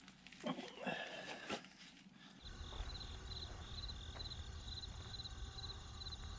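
A few small clicks and rattles of handling, then, about two and a half seconds in, outdoor sound: a low rumble of wind on the microphone and a high, short chirping repeated about twice a second from an animal.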